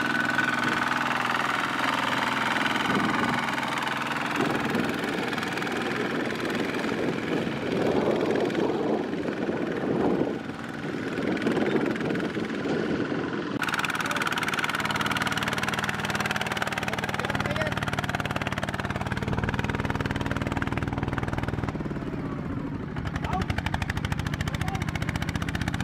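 Single-cylinder diesel engine of a two-wheel walking tractor running steadily under load as it hauls a trailer of rice sacks through mud. The sound shifts abruptly about halfway through, after which a steady low engine note dominates.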